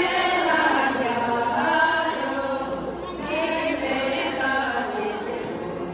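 A group of voices singing together in unison, with long held notes.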